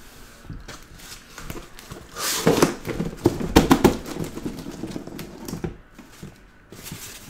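Cardboard hobby boxes and their cardboard shipping case being handled and set down on a table: a run of knocks, bumps and scrapes about two seconds in, lasting a couple of seconds, with light rustling around it.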